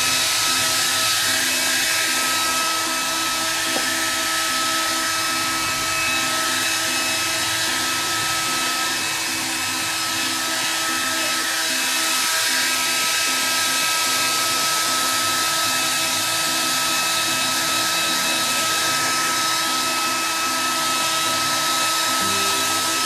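Handheld blow dryer running continuously, a steady rush of air with a steady whine from its motor, as it blows through a dog's long wet coat.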